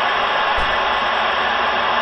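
CB radio receiver tuned to 27.185 MHz (CB channel 19), giving a steady hiss of open static with no station coming through. There is one brief low bump just over half a second in.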